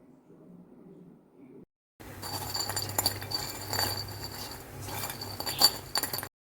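Metal utensil clinking against a pan of frying murukku, several sharp clinks over a steady hiss, as the fried murukku are scooped out of the hot coconut oil.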